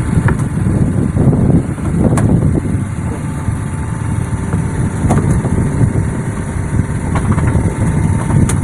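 Engine running steadily with a low rumble, with a few faint clicks scattered through it.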